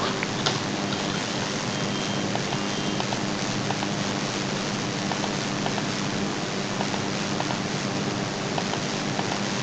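A steady, even hiss of background noise with a faint low hum, broken by a few faint short clicks.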